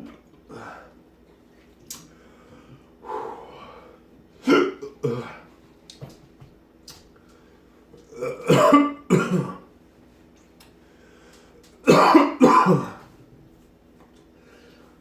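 A man coughing and clearing his throat over and over from the burn of a dried Carolina Reaper pepper in the back of his throat. The coughs come in separate bouts, the loudest ones in two close pairs in the second half.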